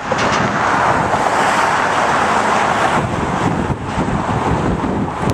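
Steady rushing of cars passing close by on a bridge roadway: tyre and engine noise, a little softer from about three seconds in.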